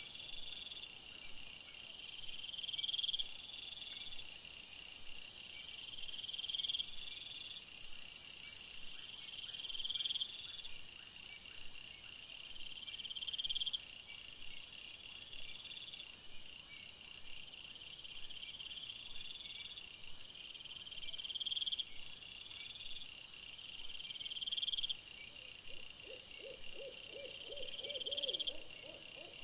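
Night insects chirping, a high call repeating about every two seconds over a steady high hiss. Near the end a lower, pulsed hooting call comes in.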